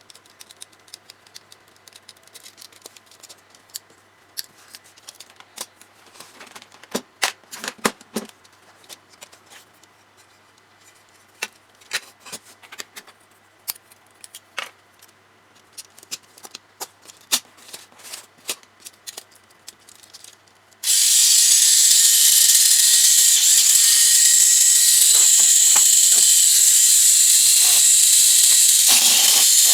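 Small plastic clicks and taps as the parts of a Tamiya Mini 4WD car are handled and snapped together. Then, about two-thirds of the way in, the car is switched on: its small electric motor and gears start suddenly and run with a loud, steady, high-pitched whir.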